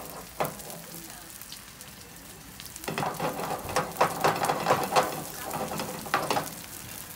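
Seafood pajeon sizzling in oil in a frying pan over a gas burner. From about three seconds in, a louder stretch of clattering and clicks lasts a few seconds as the pan is moved about.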